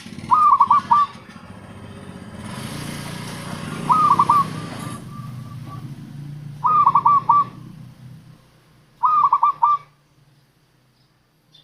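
Zebra dove (perkutut) cooing: four short phrases of quick, clipped notes, a few seconds apart, over a low background hum.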